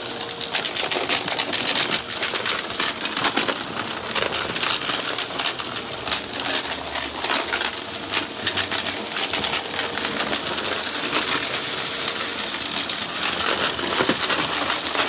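Upright vacuum cleaner running over carpet, its spinning brushroll picking up grit and debris with a dense, continuous crunching and crackling of many small clicks.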